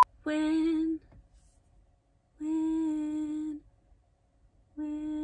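A woman humming three held notes on much the same pitch, each about a second long, with dead silence between them, as if finding the starting note for a song.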